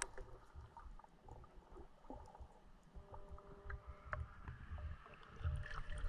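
Faint sloshing and light splashing of water, with irregular low rumbles and small clicks.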